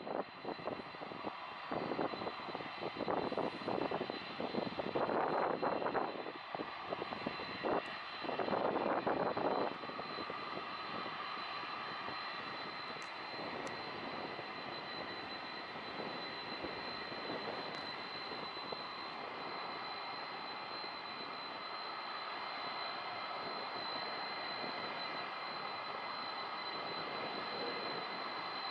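Boeing 747's jet engines running steadily at taxi power, a constant high whine over a broad roar. Uneven gusty noise rises and falls over it for roughly the first ten seconds, then the engine sound carries on alone.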